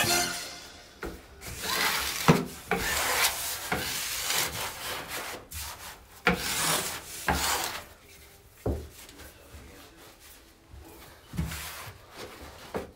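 A flat steel trowel scrapes across Schlüter KERDI waterproofing membrane in repeated strokes, pressing it into wet thinset mortar. A few sharp knocks come between the strokes, and the scraping grows fainter in the second half.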